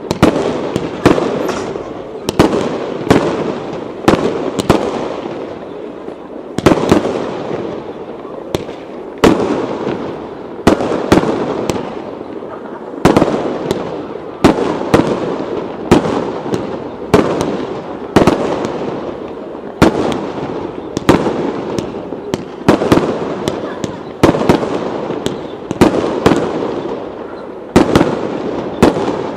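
Aerial firework shells bursting in quick succession, a sharp bang about once a second, each with an echoing tail that runs into the next.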